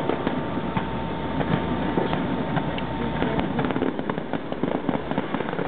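Distant fireworks display: a dense, rapid run of pops, bangs and crackles from bursting aerial shells, over a low rumble that drops away near the end.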